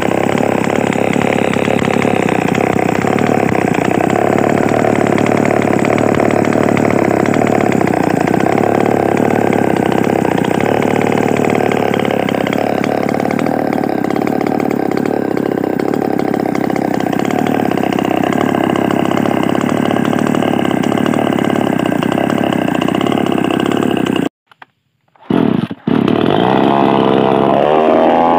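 Motoyama Black two-stroke chainsaw running steadily, unloaded, through an exhaust rebuilt with a homemade silencer made from a milk can. Near the end the sound cuts off abruptly for about two seconds, then the engine comes back and revs up.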